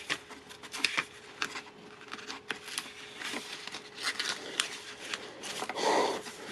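Printed leaflets and packaging handled by hand: soft paper rustling with many small clicks and taps.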